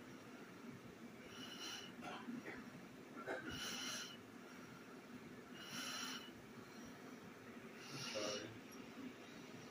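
A person's slow, steady breathing close to the microphone: four soft, hissing breaths about two seconds apart.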